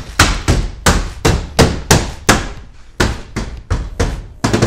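A quick series of about fifteen hand blows on a van's rear door trim panel, knocking its push-in retaining clips home into the door: sharp thumps roughly three a second, with a short pause about halfway.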